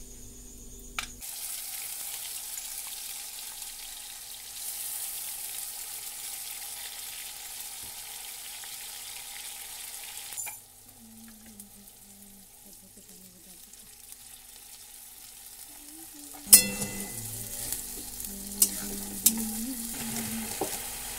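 Ground tomato, cumin and green-chili paste sizzling as it fries in hot mustard oil in a kadhai, with a spatula stirring it. The sizzle eases off about ten seconds in. About sixteen seconds in there is a sharp loud clank of the spatula against the pan, then a few lighter clinks.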